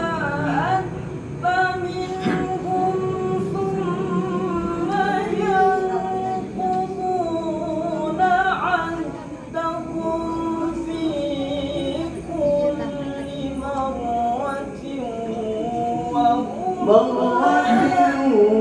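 Quranic recitation (tilawah) in the Nahawand maqam, sung by a single high voice in long melismatic phrases with sliding, ornamented pitch, rising to a louder, higher phrase near the end.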